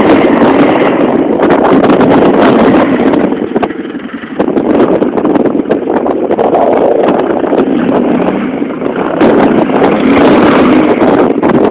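Quad bike (ATV) engine revving hard as it struggles, bogged in the slope, with a brief easing off about four seconds in before it picks up again. It is very loud and harsh, with wind on the microphone.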